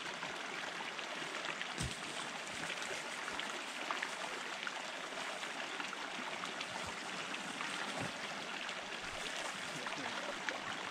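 A small mountain creek rippling over a shallow riffle: a steady rush of running water, with a soft knock about two seconds in.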